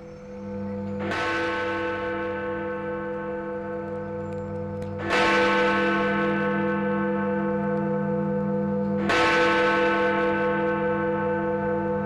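Big Ben, the Great Bell of the Elizabeth Tower, striking noon: three hammer blows about four seconds apart, each a deep bong whose ringing hum carries on under the next.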